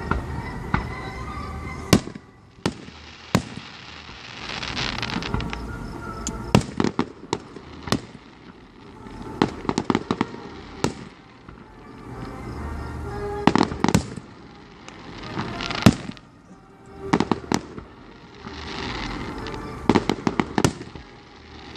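Aerial fireworks display: a steady run of booms and sharp bangs, with two longer spells of crackling about four seconds in and again near the end.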